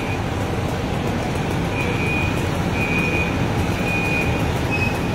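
Diesel engine of a fire apparatus running steadily with a low rumble, with a high-pitched beep repeating about once a second from about two seconds in.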